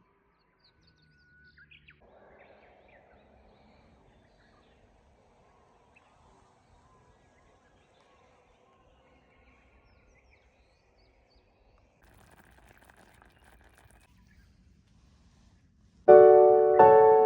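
Faint outdoor background with a few faint bird chirps, then near the end piano background music comes in loudly with struck chords left to ring.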